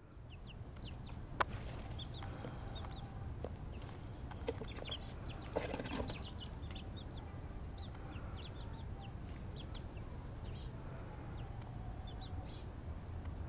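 Delaware, Silver Laced Wyandotte and Ameraucana chicks peeping in many short, high chirps, scattered throughout, over a low steady rumble. A sharp knock comes about one and a half seconds in, and a few clicks and rustles come around five to six seconds in.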